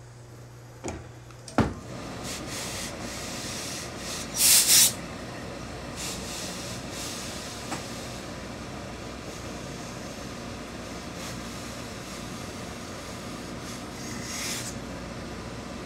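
Hose-fed industrial steam iron pressing a suit jacket: a couple of sharp knocks about a second in as it is taken up, then a steady hiss of the iron sliding on the cloth, with two loud blasts of steam about four and a half seconds in and a smaller one near the end.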